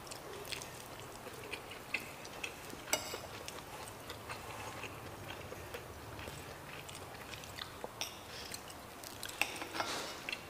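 Quiet eating at a table: soft chewing with scattered light clicks of a spoon against a plate.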